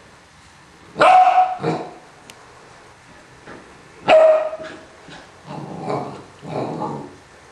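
Two dogs barking at each other in play: a loud, sharp bark about a second in and another about four seconds in, then two longer, lower barking sounds near the end.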